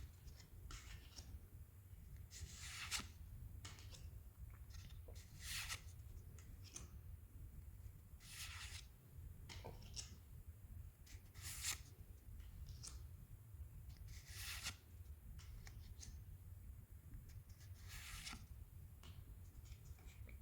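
Pokémon trading cards being handled out of booster packs: a short, papery swish every few seconds as each card is slid off the stack, over a faint low hum.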